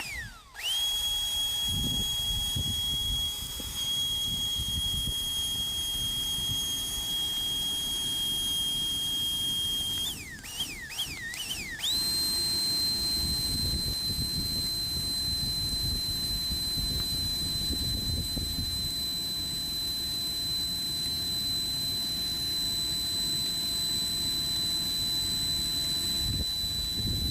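Large electric blower running with a steady high-pitched motor whine over a rush of air. About ten seconds in it revs up a few times in quick succession, then settles at a higher, steady whine.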